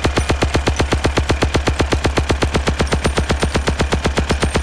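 Layered, sound-designed Gatling gun effect firing a steady rapid burst, about ten shots a second. A synthesized bass kick thuds under each shot, a chainsaw recording stands in for the spinning barrels, and dropped quarters stand in for falling casings.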